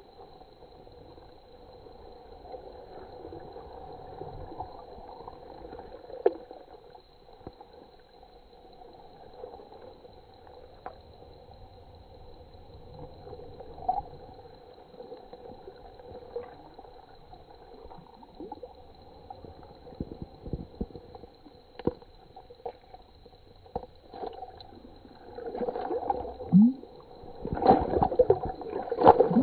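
Water sloshing and gurgling in an ice-fishing hole as a walleye is held in it by the tail and released, with scattered small splashes that grow louder and busier near the end as the fish goes down the hole.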